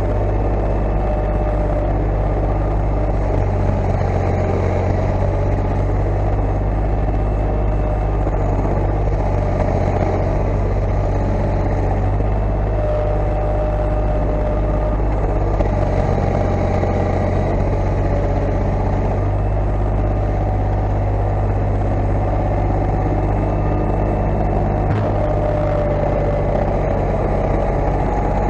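Tractor engine running steadily at a constant speed, a deep even hum that never changes pitch.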